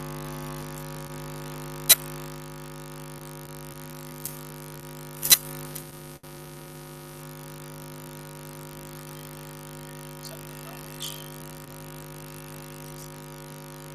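A steady electrical hum or buzz, with a few sharp clicks and knocks, the loudest about two and five seconds in.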